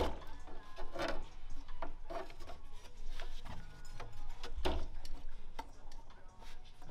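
Irregular clicks, knocks and rubbing of parts being handled and fitted in a car's engine bay, as an intake pipe and its mounting arm are worked into place.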